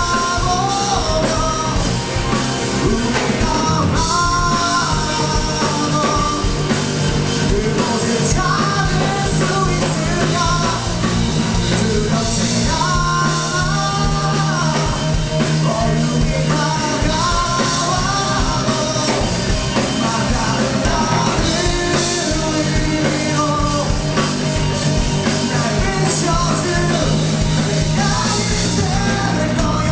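Rock band playing live, loud and continuous: a drum kit, bass and electric guitars, with a wavering melody line above them.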